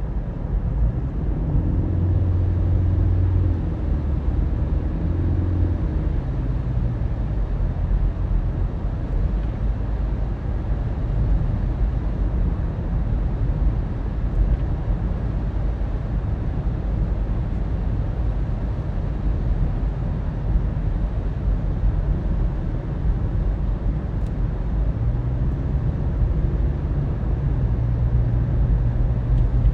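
Car driving along a road: a steady low road rumble with an engine hum that stands out during the first few seconds and again near the end.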